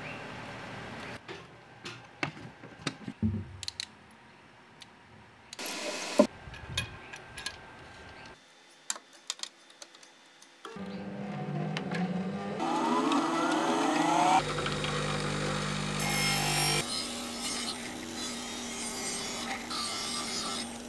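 Woodturning workshop sounds: scattered clicks and knocks of handling, then a wood lathe motor starting up about halfway, its whine rising in pitch as it speeds up, followed by steady noisy running as the tool works the pine.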